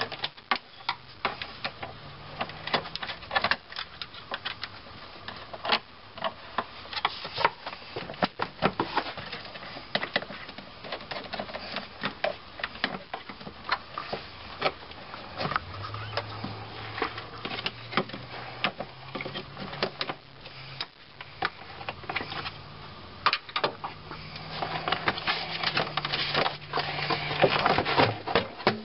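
Irregular clicks, taps and rattles of a screwdriver and hands working clamps and plastic fittings on an engine's air intake tube and fan shroud, over a faint low hum.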